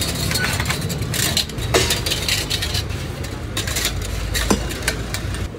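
Metal kulfi moulds clinking and scraping as they are set into the holes of a metal freezing-tank lid: a run of short sharp clicks, some ringing briefly. Under them is a steady low rumble of street traffic.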